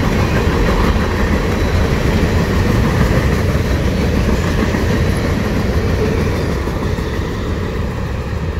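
Freight cars, covered hoppers and autoracks, rolling past on steel wheels over the rails: a steady, loud rumble that eases a little near the end as the train moves away.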